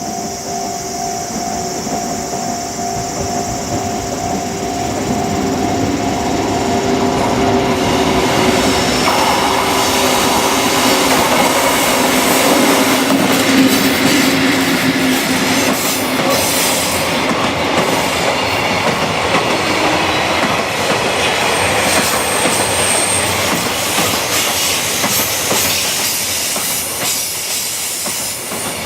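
Freight train hauled by an EF81 electric locomotive passing close by, its wagons clattering over the rail joints. The noise builds to its loudest about halfway through, with a brief high wheel squeal about three-quarters of the way in, then eases a little near the end.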